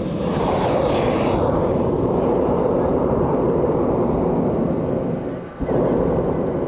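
Hot-air balloon propane burner firing with a loud, steady rushing sound. It cuts out briefly about five and a half seconds in, then fires again.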